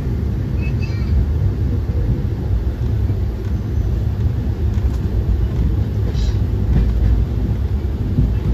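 Passenger train running: a steady, loud low rumble.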